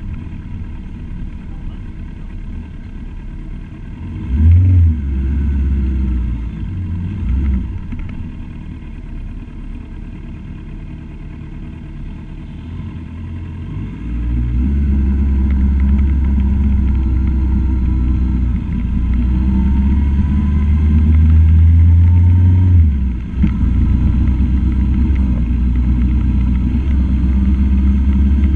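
Motorcycle engine running under way, with a steady low rumble. It gets louder about halfway through as the bike picks up speed, and drops briefly near the end before picking up again.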